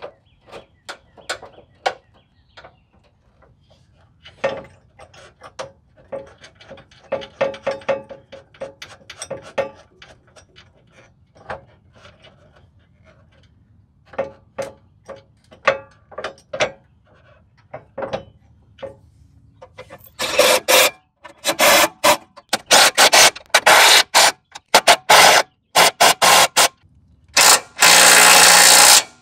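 Small metallic clicks and clinks as bolts and nuts are fitted by hand through a Jeep Grand Cherokee ZJ's steel bumper reinforcement to hold the tow hooks. From about twenty seconds in, a cordless DeWalt impact driver runs in loud repeated bursts, tightening them, with the longest burst near the end.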